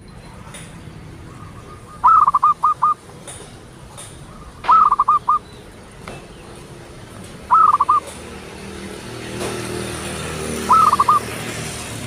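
A bird calling four times, each call a quick run of four or five short, sharp notes, repeated every two to three seconds.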